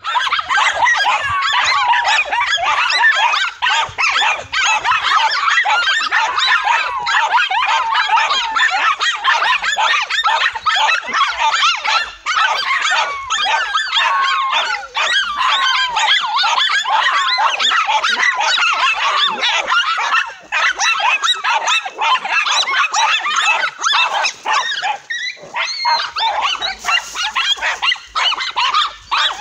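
A pack of dogs barking and yelping without pause, many high voices overlapping, as they bait and lunge at a cornered tegu lizard.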